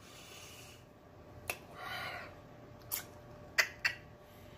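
Close-up mouth noises while eating: a few sharp lip-smacking clicks, the loudest about three and a half seconds in, and a short breath through the nose about two seconds in.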